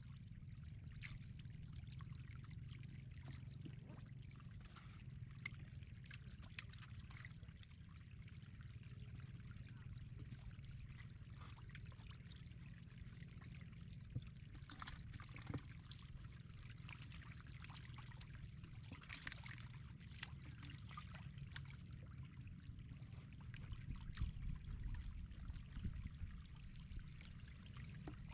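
Shallow floodwater running steadily across a dirt road, with scattered small splashes from catfish wriggling through it. The splashing gets busier and louder near the end.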